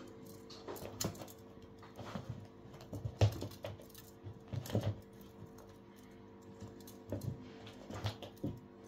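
Irregular soft thumps, taps and scuffs of a playing cat pouncing and rolling on a shaggy rug, loudest about three seconds in and again near five seconds, over a faint steady hum.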